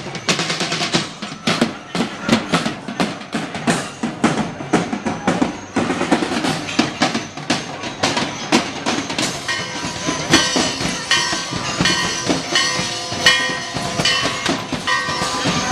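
Several drum kits and cymbals pounded together by drummers on a parade float: a fast, dense clatter of hits. Ringing tones join in during the second half.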